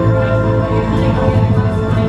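Ambient electronic drone music from a looping audiovisual installation: several held tones layered over a deep steady hum, made from time- and pitch-shifted loops drifting in and out of phase.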